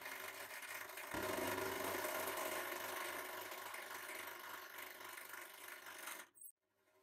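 A 150-ton hydraulic press running with a rattling mechanical whir, growing louder about a second in as the ram bears down on the green produce in its perforated juicer cylinder and crushes it. The machine noise cuts off abruptly near the end.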